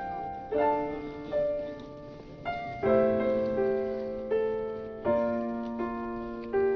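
Background piano music: slow, gentle notes struck one after another and left to ring and fade.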